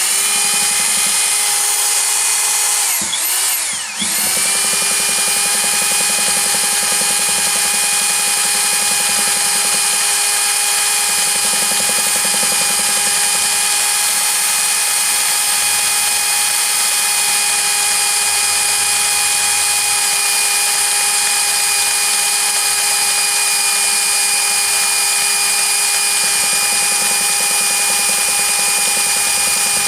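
Cordless screwdriver running steadily at high speed, spinning a chainsaw's oil pump through an adapter to test oil delivery. Its whine dips and picks up again twice, about three and four seconds in, then holds steady.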